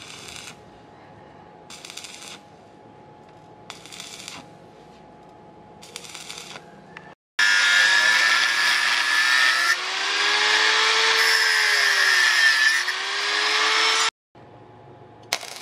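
Four short bursts of stick-welding crackle, about two seconds apart, as a square steel tube is tack-welded. Then, after a sudden cut, an angle grinder with a cut-off disc slices steel for about seven seconds, loud and steady, its pitch dipping and rising again under load.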